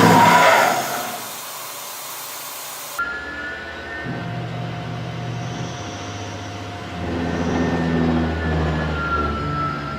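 CNC machine running, a steady low mechanical hum with thin high whining tones that drift slightly in pitch. The sound changes abruptly about three seconds in.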